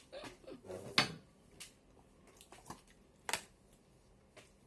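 A few sharp clicks and knocks of plastic food containers and packets being handled on a table, the loudest about a second in and another a little past three seconds.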